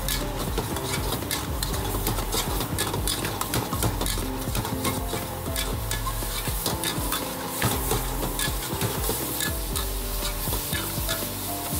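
Flat metal spatula scraping and knocking against a steel wok in quick repeated strokes while stir-frying, with food sizzling in the hot oil.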